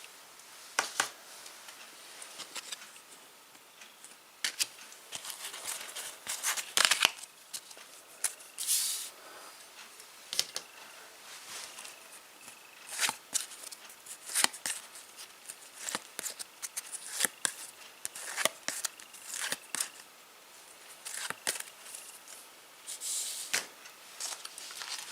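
Panini Adrenalyn XL trading-card packs being torn open and the cards handled, with short scattered bursts of wrapper tearing, crinkling and card flicking.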